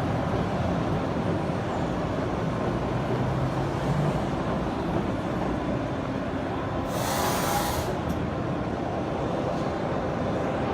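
Steady din of running machine tools in a large exhibition hall. About seven seconds in comes a hiss lasting about a second.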